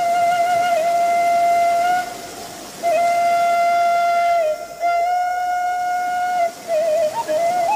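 Background music: a flute-like wind instrument playing a slow melody of long held notes with a slight waver, broken by short pauses about two seconds in and again near the middle.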